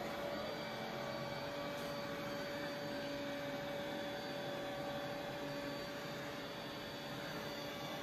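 Samsung Jet Bot AI+ robot vacuum running on carpet: a steady motor hum with a constant whining tone.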